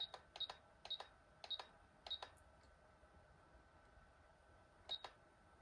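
Radio-control transmitter giving short high beeps as its menu buttons are pressed to reach the endpoint settings: a quick run of about six beeps in the first two seconds, then two more near the end.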